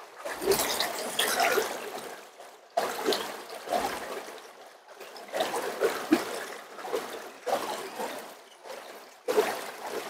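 Water splashing and pouring in about five separate bursts a couple of seconds apart, each starting suddenly and fading over a second or so.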